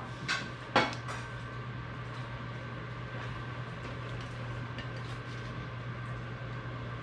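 Kitchen utensils and dishes clattering twice near the start as food is served onto plates, then only a steady hum of a kitchen appliance with a few faint clicks of a utensil against the baking dish.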